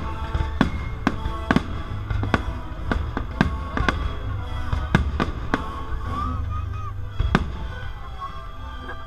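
Aerial firework shells bursting in quick succession, a sharp bang about every half second, thinning out near the end. Orchestral music plays under the bangs.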